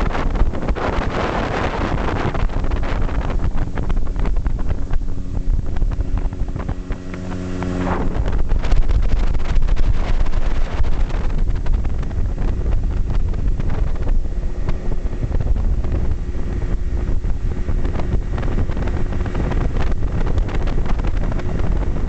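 Yamaha 25 hp outboard motor running under way on a small boat loaded with three people, with heavy wind buffeting the microphone. The engine's steady tone stands out for a few seconds early in the run, then the wind noise grows louder from about eight seconds in.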